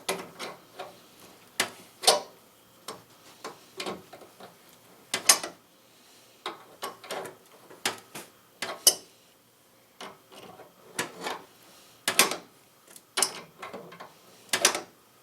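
Irregular clicks and knocks of hand tools and parts being worked on a car's battery ground connection, about one every half second to a second, some in quick clusters.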